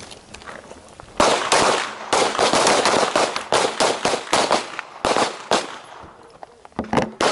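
Pistol shots from several shooters on a firing line: a rapid, overlapping run of sharp cracks starting about a second in and easing off after about five seconds, with a few last shots near the end.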